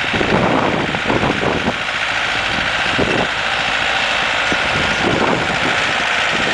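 Ford farm tractor's engine running steadily while plowing snow, with a few short rough noises in the first couple of seconds.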